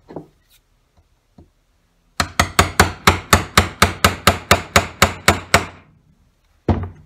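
A hammer striking the handle of a small wood chisel held upright, driving it into a wooden table leaf: a fast, even run of about seventeen blows, about five a second, for some three and a half seconds, then one more blow near the end.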